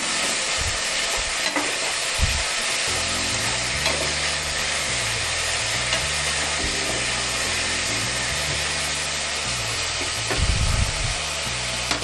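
Crushed shallots sizzling steadily in hot oil in an aluminium kadai, stirred and scraped with a metal ladle as they fry. A few dull knocks come about ten seconds in.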